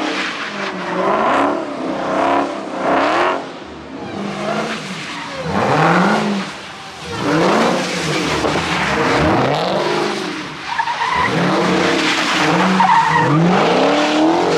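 Car engine revving up and down over and over, its pitch rising and falling in quick arcs, with tyres spinning and skidding: a car doing burnouts or donuts.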